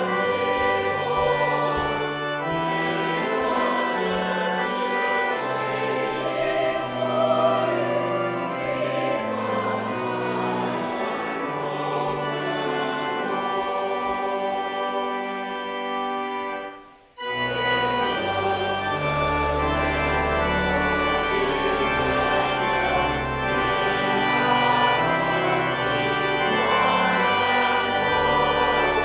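Church choir and congregation singing a hymn with organ accompaniment. A little past halfway there is a brief break between verses, and the singing resumes with a deeper organ bass.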